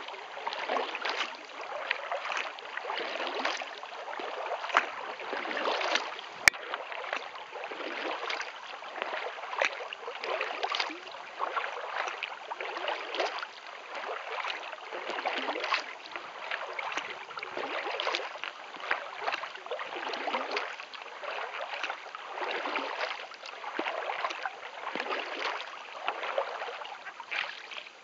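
Kayak paddle strokes dipping and splashing in calm lake water, swelling in an even rhythm about once a second, with water rushing along the hull. A single sharp click sounds about six seconds in.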